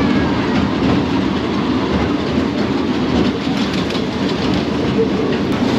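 Small family roller coaster train rolling along its steel track, its wheels giving a steady rumble with a clatter of small clicks, heard from on board.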